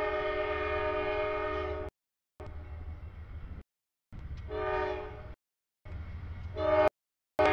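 Diesel freight locomotive's air horn sounding a multi-note chord for a grade crossing as the train approaches, over the low rumble of the engine. One long blast, then the sound cuts in and out with several short gaps of silence, the horn coming back louder near the end.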